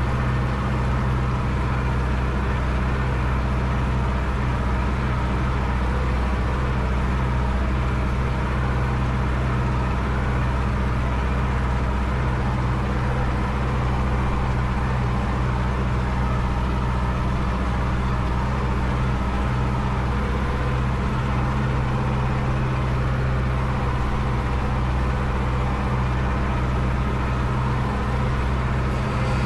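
Case IHC 844 XL tractor's four-cylinder diesel engine running steadily, heard from inside the cab.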